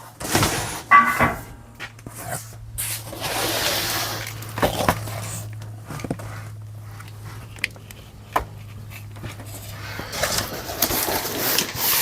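A box being opened and its contents handled: scattered knocks, scrapes and rustling, with a steady low hum underneath that stops near the end.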